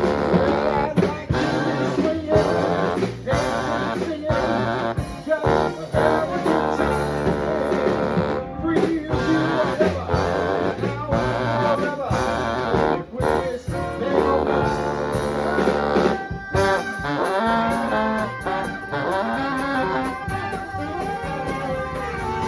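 Live swing band playing dance music, with brass and guitar.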